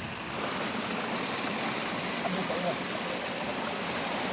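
Steady rush of water from an overflowing lake running down a shallow outflow channel and through a fishing net.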